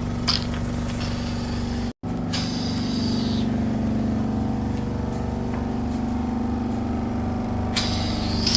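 Hydrafacial machine's pump running for the microdermabrasion handle: a steady hum, with spells of hissing air. The sound drops out for an instant about two seconds in.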